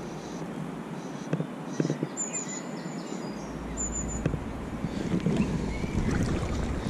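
Outdoor riverside background with a few short, high bird chirps, then wind buffeting the microphone with a low rumble from about three seconds in.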